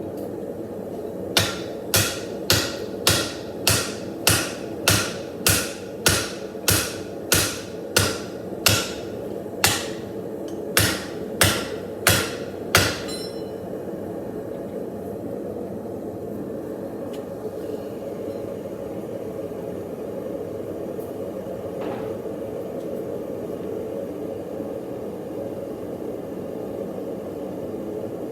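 Hand hammer forging a steel knife blank: about nineteen ringing metal-on-metal blows at roughly two a second, with a short break near ten seconds in, stopping about thirteen seconds in. Under it, and on after the blows stop, a steady rushing noise that fits the lit propane forge's burner.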